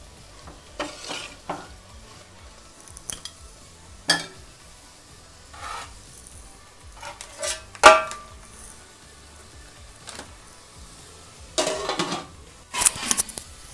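Metal spatula stirring and scraping prawns frying in masala in a metal pot, with a light sizzle. Scattered clinks and clanks of metal on the pot, the loudest about eight seconds in, and a run of clatter near the end.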